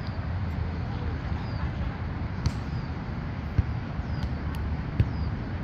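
Outdoor ambience: a steady low rumble with a few sharp knocks scattered through it and faint, brief high chirps.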